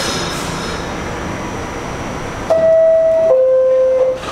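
Subway door-closing chime sounding inside an R46 car: two steady tones, the second lower, each under a second long, starting about two and a half seconds in. Before it there is the steady noise of the train standing at the platform. The chime is the signal that the doors are about to close.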